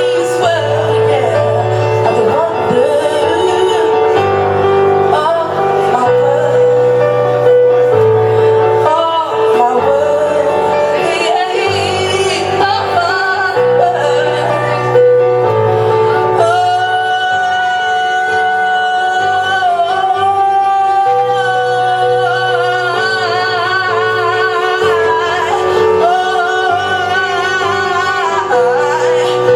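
A three-piece band playing groove music live, with sung vocals over a stepping bass line and sustained chords. About halfway in, the voice moves into long held notes with vibrato.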